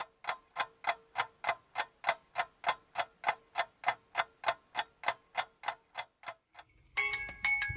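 Phone countdown timer ticking steadily, about three ticks a second, then its alarm tone sounding about seven seconds in as the countdown ends.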